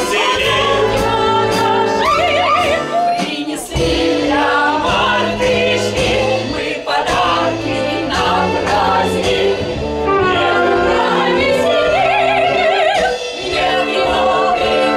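Musical-theatre song: voices singing with vibrato over orchestral accompaniment.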